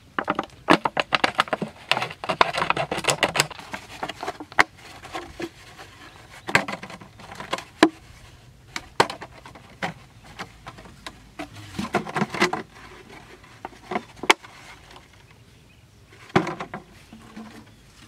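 Hands scraping and packing dry sandy soil around a large plastic water bottle set in a hole, with irregular scrapes and crunches and sharp clicks as the bottle is handled. The noise comes in clusters, busiest in the first few seconds.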